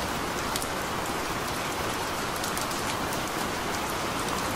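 Steady rain falling: an even hiss with scattered sharp drop ticks.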